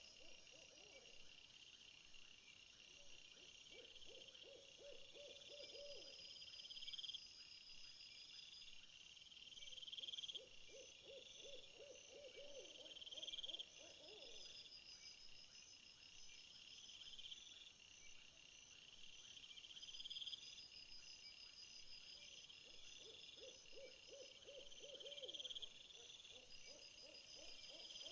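Faint night-time insect chorus, with high pulsed calls that repeat every couple of seconds. Three times, a low trilling call, each lasting a few seconds, sounds over the insects.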